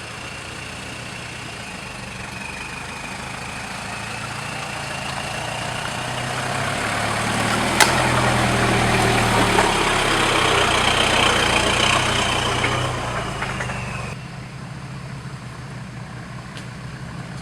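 Off-road 4x4 truck engine working under load. It builds up over several seconds, holds strongest for a few seconds past the middle, then eases off suddenly near the end. A single sharp click or knock comes about halfway through.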